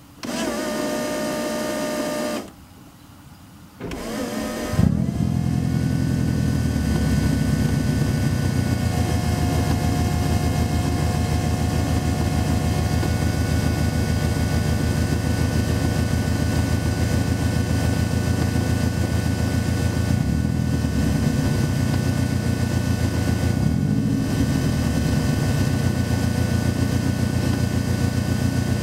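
A DA-31 external electric fuel pump, mounted in a Subaru Impreza GC8's trunk, whines steadily as it primes for about two seconds, then stops. It starts again and the car's turbocharged flat-four engine cranks and catches about five seconds in, then idles with a steady pulsing beat while the pump's whine runs clearly over it.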